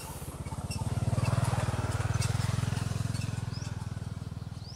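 A small engine running nearby, its rapid low beat swelling to a peak a second or two in and then fading, as if it passes by. Faint bird chirps sound above it.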